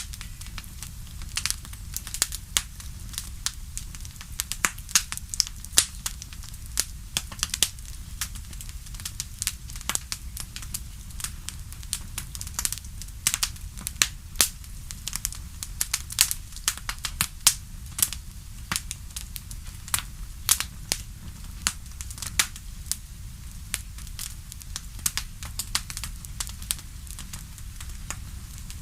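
Wood fire in a fireplace crackling: dense, irregular sharp pops and snaps over a steady low rumble of the flames.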